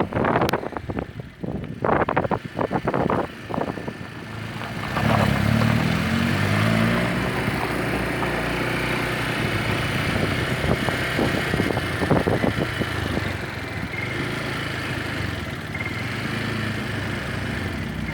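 A string of irregular knocks and bumps, then, about five seconds in, a small motorcycle engine comes up loudly and keeps running steadily.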